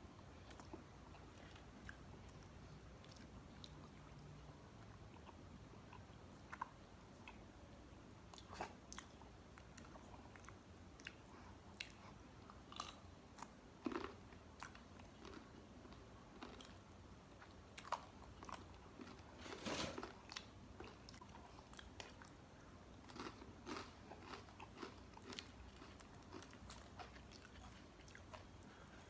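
A person chewing and biting into crunchy fried fast food, close to the microphone: faint, irregular crunches and mouth clicks, with a louder run of crunching a little before twenty seconds in.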